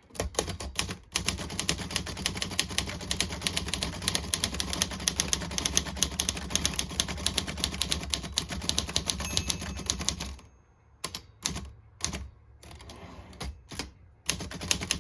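Olivetti Lettera 22 portable manual typewriter being typed on: a fast, continuous run of key strikes for about ten seconds, then a few slower, spaced strikes.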